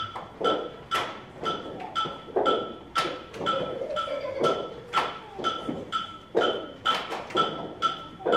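A group of children clapping their hands in a steady rhythm, about two claps a second, in a partner hand-clapping game.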